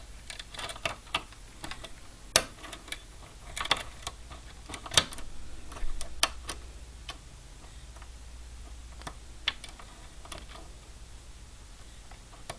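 Hook pick and tension wrench working in the keyway of a 5-pin Kawneer mortise cylinder: irregular light metallic clicks and ticks as the pins are lifted, bunched together in the first half and sparser near the end.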